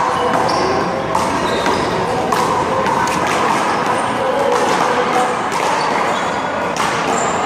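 Rubber handball being slapped by hand and smacking off the wall and pavement in a one-wall handball rally: a string of sharp smacks at irregular intervals.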